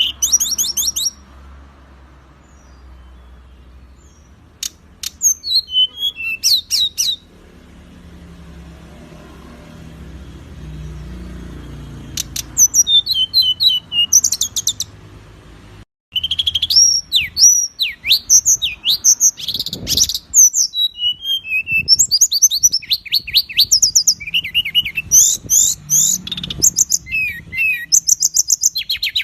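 Songbirds singing masteran: sharp, rapid, closely packed phrases of high chattering notes and quick trills. The singing comes in short bursts over the first half, with quieter stretches between, then after a brief break runs dense and nearly unbroken.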